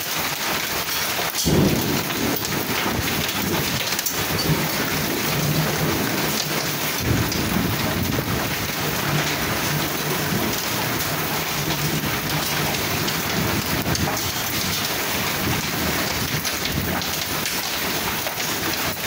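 Heavy rain and hail pelting down in a thunderstorm, a steady dense hiss throughout. Thunder rumbles in suddenly about a second and a half in, and again in a longer roll from about seven seconds.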